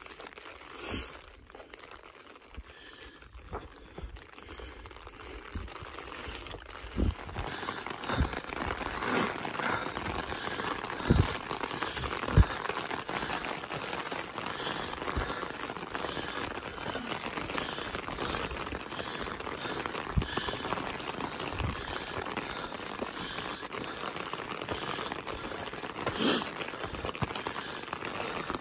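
Steady hiss of rain, growing louder about a quarter of the way in, with scattered low thumps.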